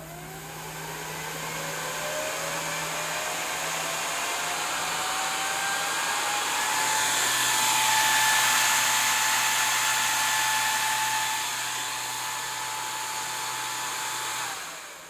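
48-volt fan, run as the test load on a switching power supply, spinning up with a rising whine and rush of air. It runs steadily at full speed, then winds down with a falling whine near the end.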